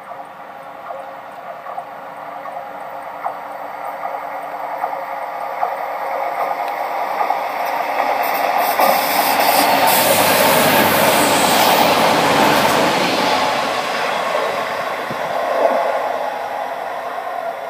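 Stadler Bombardier GTW 2/6 diesel multiple unit approaching, passing close by and drawing away: engine and wheel-on-rail noise that grows louder, is loudest a little past the middle, then fades.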